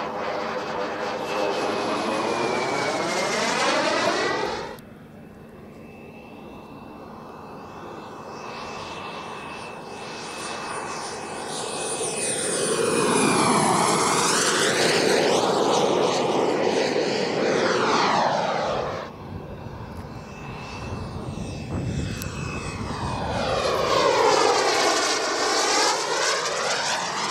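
Large-scale radio-controlled Su-30 jet model flying past several times. A steady high engine whine drops in pitch as it goes by, and a rushing sound swells and fades on each pass. The sound changes abruptly about five and nineteen seconds in, where the footage is cut.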